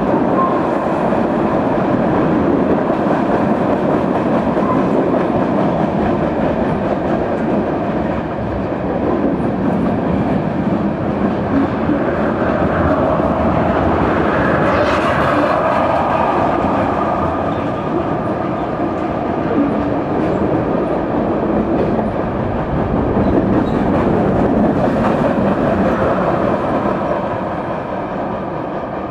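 Freight cars of a long Canadian National mixed freight train rolling past, steel wheels rumbling and clacking on the rails. A higher squealing tone rises and falls about halfway through.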